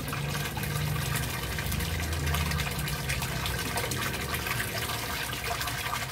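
Water pouring in a steady stream from a hydroponic grow bed's T siphon outlet into a plastic sump tank, splashing onto the water surface. The siphon has kicked in and is draining the flooded gravel bed, the drain phase of the flood-and-drain cycle.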